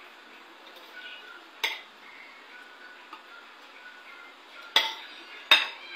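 Metal spoon and fork clinking and scraping against a plate while scooping rice. There are three sharp clinks: one about a second and a half in, and two near the end, the last the loudest.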